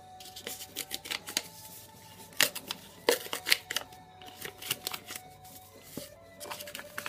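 Paper wrapping being pulled and peeled off a small jewellery box by hand: irregular crinkling and sharp paper crackles, loudest a little past the middle, over a faint steady background tone.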